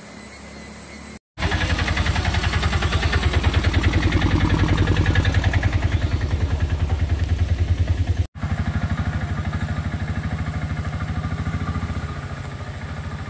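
Motorcycle engine running with a fast, even pulse while the bike is ridden. The sound breaks off sharply for an instant about a second in and again near eight seconds.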